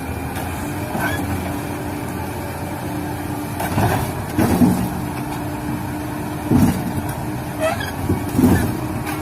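Radio-controlled toy construction vehicle running, a steady motor hum under a constant rushing noise, with a few short louder bursts about four, six and a half, and eight and a half seconds in.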